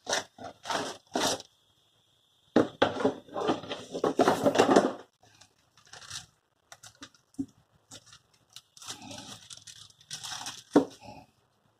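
Packaging being torn open and handled by hand: irregular rustling, tearing and crinkling with small clicks, loudest and densest about three to five seconds in, then quieter scattered handling.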